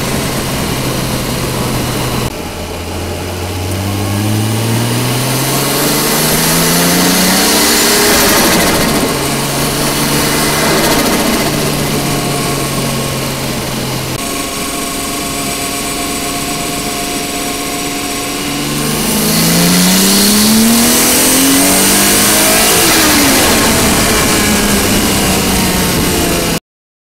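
Nissan RB25DET Neo turbocharged straight-six engine driving under load, heard through a microphone in the engine bay: it runs steadily, climbs in pitch as it accelerates from about two seconds in, settles back, then accelerates again about nineteen seconds in. The sound cuts off suddenly just before the end.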